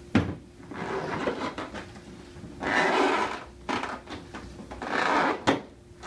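Hard plastic knocking and working as a Gamma Seal lid's ring is forced down onto the rim of a 5-gallon plastic paint bucket, with a sharp knock just after the start and another near the end, and longer noisy stretches between.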